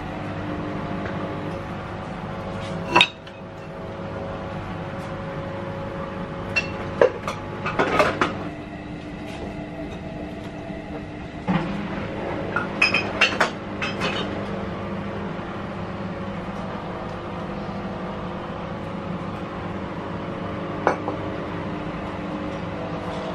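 Glass jars clinking and knocking now and then as they are handled on a kitchen counter: a single clink, a few together, a quick run of clinks, then one more near the end. Under it runs a steady machine hum.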